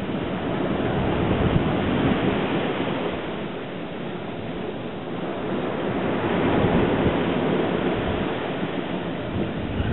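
Sea surf washing on the shore, swelling and easing, with wind buffeting the microphone.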